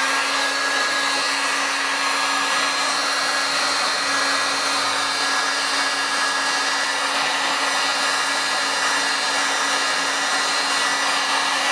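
Electric heat gun running steadily: fan motor hum and a high whine over rushing air as it blows hot air onto a plastic end cap to soften it.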